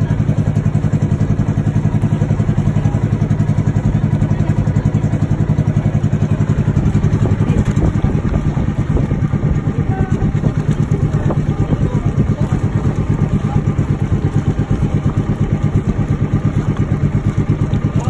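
A boat's engine running steadily at an even speed, with a fast, regular chugging pulse.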